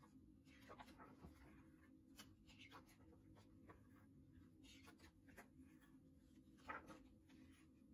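Faint rustling and soft clicks as the pages of a hardcover CD photobook are turned one after another by hand, the loudest swish a little before the end.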